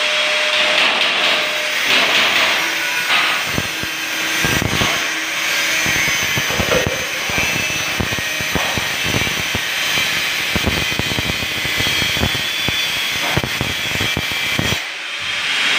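Handheld angle grinder cutting a metal rod: a steady high whine over a loud grinding hiss with rapid scraping chatter from the cut, dipping briefly near the end.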